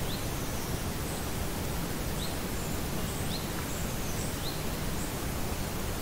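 Steady outdoor hiss of a quiet rural clearing. Over it a bird gives a short rising chirp four times, a second or two apart, with a few fainter, higher bird notes between.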